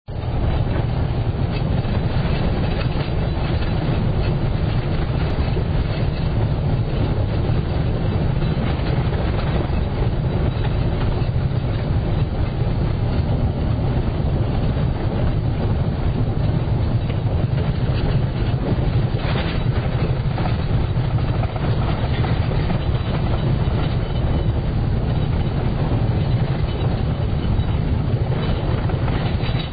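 Car driving on an unpaved gravel road, heard from inside the cabin: a steady low rumble of tyres on the dirt, with scattered clicks of loose stones.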